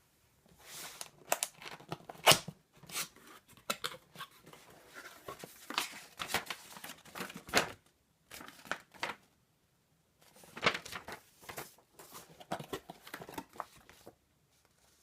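Packaging being handled and opened: irregular bursts of rustling with sharp clicks and knocks, the loudest a knock a little over two seconds in.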